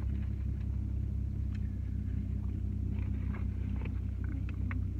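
Steady low hum of a car engine idling, heard from inside the car's cabin, with scattered light clicks over it.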